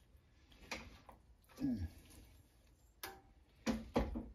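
Metal tongs clinking against a stainless steel roasting pan while chicken pieces are turned: a few scattered clinks, the loudest two close together near the end. A short falling vocal hum about a second and a half in.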